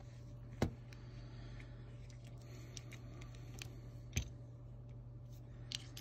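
A few sharp clicks and taps from a phone being handled on a rubber repair mat, the loudest a little after half a second in, over a steady low hum.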